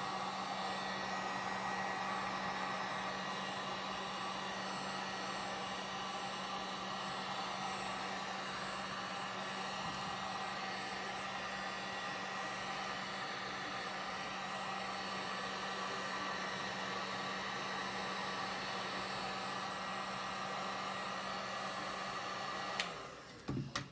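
Heat gun running steadily, a rushing blow of hot air with a low hum. Near the end it cuts off with a click, followed by a few light knocks.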